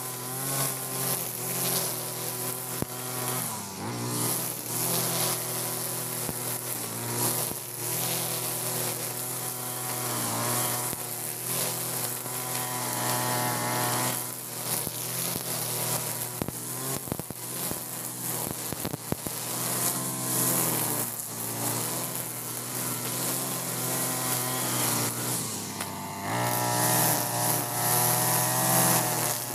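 Two-stroke brush cutter with a nylon-line trimmer head running at cutting speed as the line cuts through grass. The engine note is steady, dipping and picking up again a few times, with a higher pitch around the middle and again near the end.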